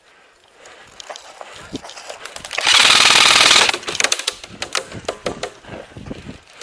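Airsoft electric gun firing a loud, close full-auto burst of about a second, a little under three seconds in, amid scattered sharp clicks of other shots.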